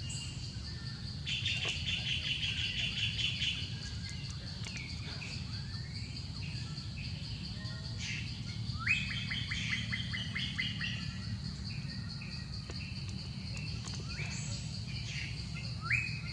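Small birds chirping in rapid trills of quick repeated notes, three runs of them, over a steady high-pitched thin tone and a low rumble.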